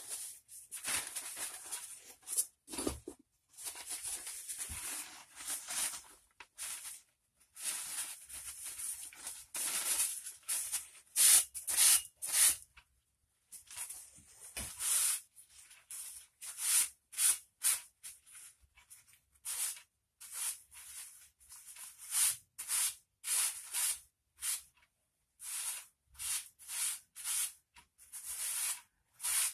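Scrubbing strokes as rust residue is wiped off a metal piece just taken out of an electrolysis bath: scratchy rubbing in irregular runs, turning into short separate strokes at about two a second in the later part.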